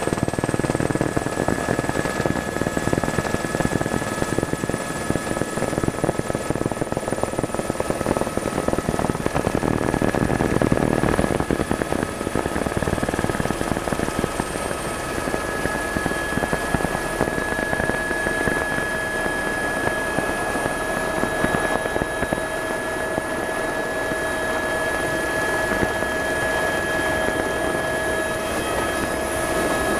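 Tour helicopter in flight, heard from on board: a steady drone of engine and rotor chop with high steady whine tones over it. It swells a little about ten seconds in, then settles slightly lower.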